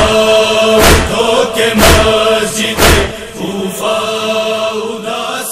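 Close of a noha: a chorus holding a chanted drone under heavy matam chest-beats about once a second, which stop about three seconds in, leaving the drone to fade.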